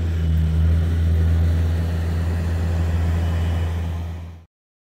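A steady low hum of running machinery, which fades and cuts off about four and a half seconds in.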